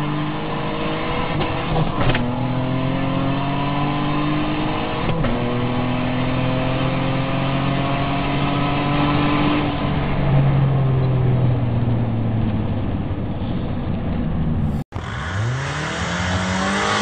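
Car engine accelerating hard, heard from inside the cabin: the pitch climbs, drops with an upshift about two seconds in and again about five seconds in, climbs once more, then holds and eases off. Near the end an abrupt cut brings in a different car's engine revving up steeply as it launches from a standstill.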